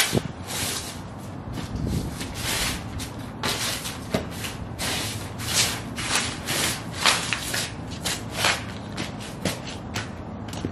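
Sheepskin boots stepping and stomping on loose glossy magazine pages on a concrete floor, the paper crinkling and scraping under each step, about one or two steps a second.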